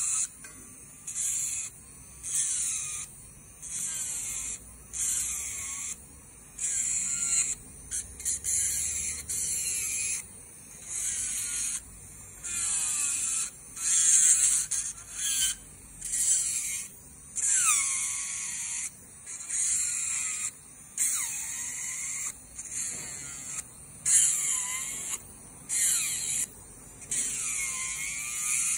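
Electric nail drill grinding away a large decoration glued onto a false nail, in short repeated passes about once a second. Each pass is a high grinding buzz whose whine dips and rises in pitch as the bit bites into the part.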